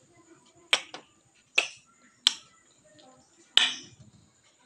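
Wet kissing smacks of lips against a mirror: about five sharp smacks spaced unevenly across a few seconds.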